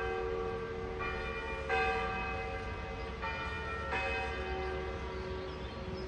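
Church bells ringing, struck about four times a second or more apart, each strike a clear tone that rings on and overlaps the next.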